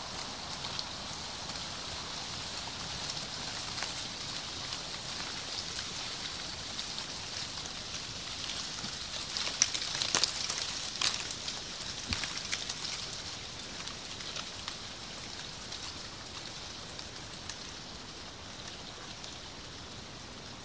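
Dry autumn leaves falling and pattering onto leaf litter, a steady crisp rustle like light rain, with a louder cluster of sharp crackles about ten seconds in.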